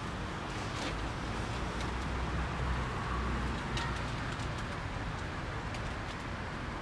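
Hands rustling through hay and rabbit-fur nesting in a wooden nest box, with a few faint crackles, over a steady low outdoor rumble.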